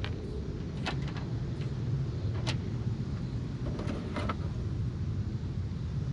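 Hands working on a car's plastic bumper: scattered light clicks and taps, with a cluster of them about four seconds in, over a steady low rumble.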